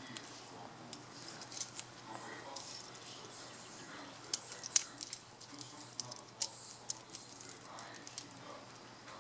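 Metal link bracelet of a wristwatch clinking and its fold-over clasp clicking as it is handled: a series of sharp, irregular metallic clicks, the loudest a little over four seconds in.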